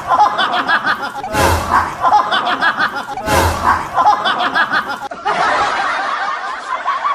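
Snickering laughter, the same burst heard three times about two seconds apart, each starting with a low thump. About five seconds in it gives way to a different, noisier stretch.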